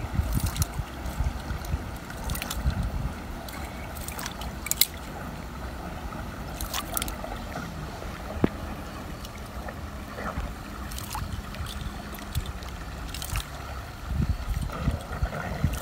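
Cast net being hauled up out of a lake, water trickling and dripping from the mesh, with scattered sharp clicks every second or two as the net is handled.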